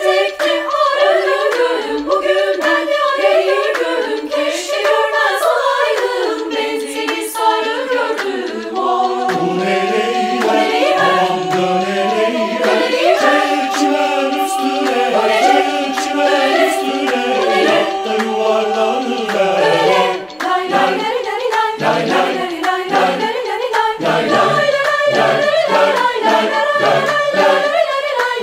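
Mixed choir singing a choral arrangement of a Turkish folk song a cappella, in several parts. Women's voices carry the opening, lower voices join about nine seconds in with long held chords, and the singing breaks off briefly about twenty seconds in before going on.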